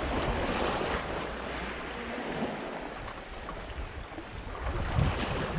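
Sea waves washing against a rocky shore, with wind buffeting the microphone; a louder surge about five seconds in.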